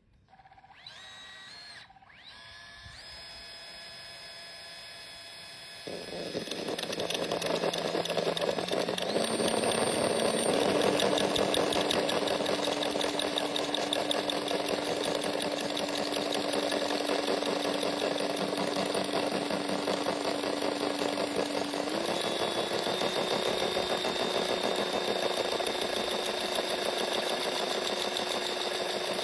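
Small battery-powered reciprocating saw fitted with a tile-removal blade: the motor whirs up and runs quietly for a few seconds. About six seconds in it turns loud, with a fast rattle as the blade works against ceramic tile. Its motor pitch steps up twice along the way.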